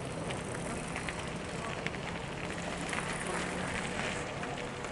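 Small narrow-gauge steam locomotive Thomas Bach, a Hunslet saddle tank, moving slowly with a steady hiss of steam and scattered irregular clicks and knocks.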